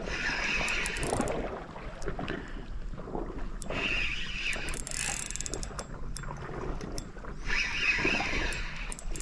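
Spinning reel being cranked in three short bouts, its gears whirring with small clicks, as a hooked fish is wound in on light line.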